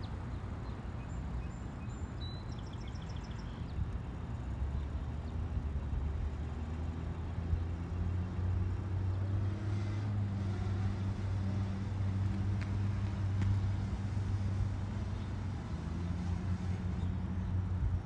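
Steady low mechanical hum with an outdoor noise wash, its pitch shifting slightly a few times, and a brief high bird-like chirp about two seconds in.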